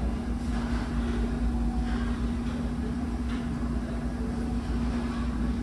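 Steady low drone of a ferry's engines and machinery heard from inside the ship, a deep rumble with a constant hum over it.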